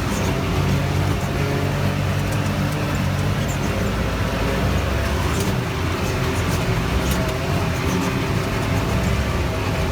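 A vehicle engine running steadily while driving, with a constant low hum under a rush of wind and tyre noise.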